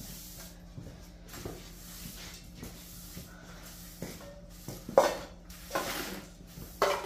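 Knocks and clatter of objects being handled and set down, small at first, then several louder thumps about five, six and seven seconds in, over a faint steady hum.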